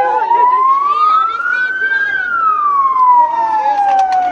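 Emergency vehicle siren on a slow wail, its pitch rising for about two seconds and then falling for about two seconds, with voices underneath.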